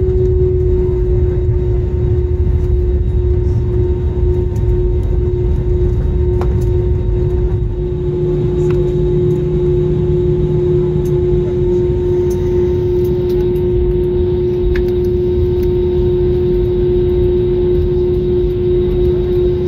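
Cabin noise of an Airbus A320neo slowing on the runway after landing: a steady low rumble with a steady whine over it that sinks slightly in pitch.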